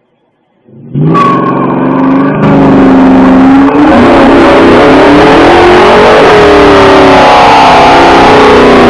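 A car engine starts revving hard about a second in and is held at high revs for a burnout, its pitch wavering up and down under a dense, very loud noise of spinning tyres.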